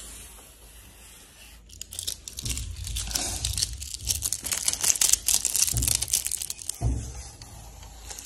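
Plastic protective film being peeled off and crumpled: a fast, crackling tearing that starts about two seconds in and is loudest in the middle, with a few dull bumps from handling.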